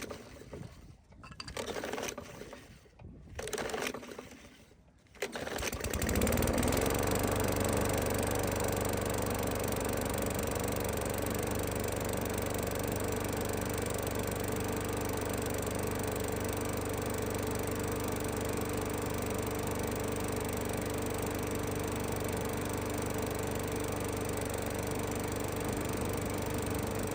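Poulan Pro push mower's small four-stroke engine being pull-started: a few short yanks of the recoil cord, then it catches about five seconds in, revs up briefly and settles into steady running. It starts easily on fresh gas once the stuck recoil starter has been freed.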